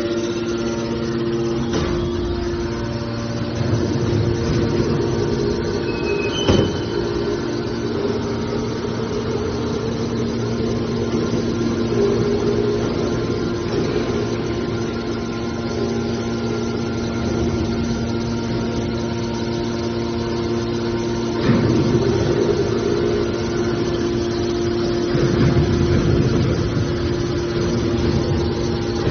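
A scrap metal baling machine running with a steady machine hum. A sharp knock comes about six and a half seconds in, and louder rough surges come a few times later on.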